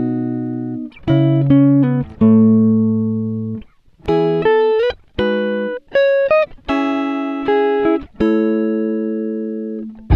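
Background music: plucked guitar chords and notes, each struck and left to ring and fade.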